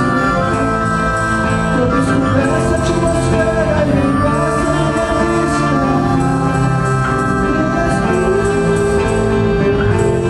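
A live band playing a song, with a singing voice over the instruments.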